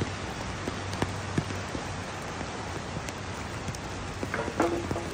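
Heavy rain falling, a steady hiss with scattered sharp drop-like clicks.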